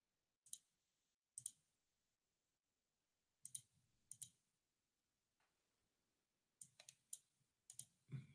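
Faint clicks of a computer mouse, about a dozen in irregular clusters, some coming in quick pairs like double clicks, over near-silent room tone.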